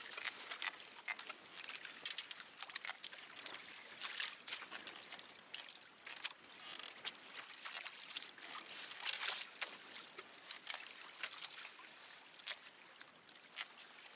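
Water lapping and splashing against a kayak, a steady run of small irregular splashes and trickles.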